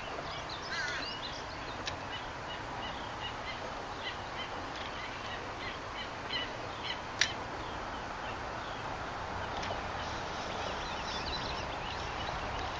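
Birds chirping and calling over a steady outdoor hiss, with one sharp click about seven seconds in.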